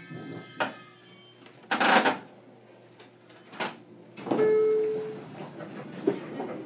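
Inside a JR Kyushu 817 series electric train car: scattered clicks and clunks, a short loud burst of hissing air about two seconds in, and a brief steady beep a little after the middle.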